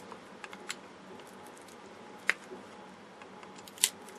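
A few sharp clicks and small cracks as channel-lock pliers work at a brittle old capacitor casing. Two stand out, one about two seconds in and a louder one near the end.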